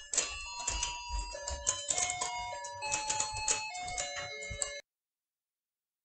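Battery-powered Let's Go Fishin' toy playing its electronic tune one plain note at a time, with clicking and clattering from the plastic pond and the fishing rods knocking on it. The sound cuts off suddenly about five seconds in.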